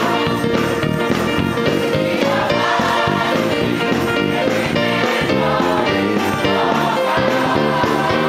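Gospel choir singing with instrumental accompaniment.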